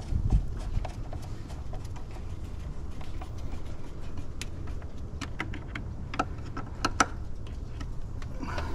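Scattered light metallic clicks and taps of a bolt being fitted and tightened by hand on the engine, over a low steady rumble, with a dull bump at the start.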